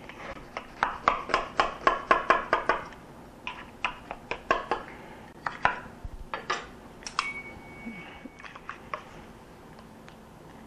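A knife cutting cake in a metal baking pan, the blade knocking against the pan in a quick run of strokes for about three seconds. Then come a few scattered clicks and scrapes as a metal spatula works a piece loose from the pan.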